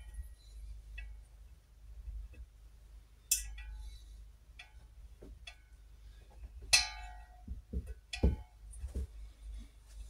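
Small metal parts clinking as a sprung Thackeray washer is worked onto a rocker spindle in a Norton Commando cylinder head. There are two sharper ringing clinks about three and a half seconds apart among lighter ticks, and a few dull knocks near the end.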